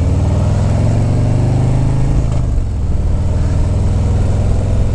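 Harley-Davidson bagger's engine accelerating with its note rising, then dropping as the throttle eases off about two seconds in, with wind rushing past the rider's helmet microphone.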